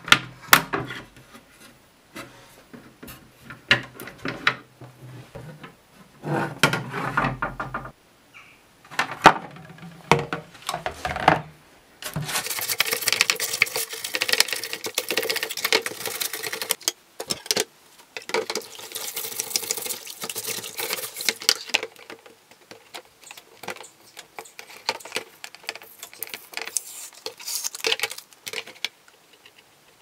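Clicks and knocks of a screwdriver and hands working on a hard plastic coffee-machine tray, then, about twelve seconds in, a stiff brush scrubbing the plastic in a bowl of soapy water in two long spells, followed by lighter rubbing with a scouring pad.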